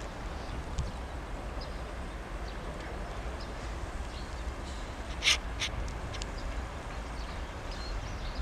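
Open-air ambience: a steady low rumble with scattered small bird chirps, and a loud, sharp double chirp about five seconds in.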